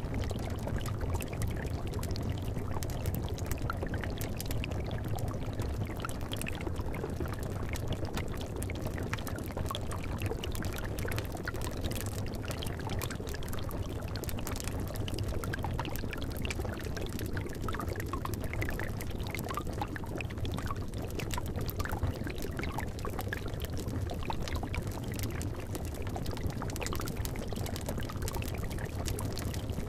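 Steady bubbling of liquid in a cauldron, with many small pops scattered throughout over a low, even rumble.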